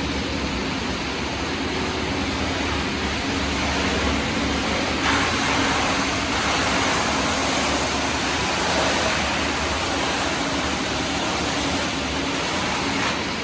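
Machinery of an automatic board-sanding production line running: a constant noisy rush over a low steady hum, growing louder from about five seconds in and easing back near the end.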